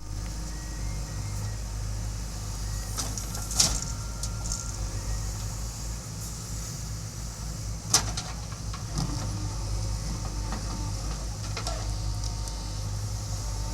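Backhoe loader's diesel engine running steadily with a low hum, with two sharp metallic knocks, one a few seconds in and one about midway, and a few fainter clicks.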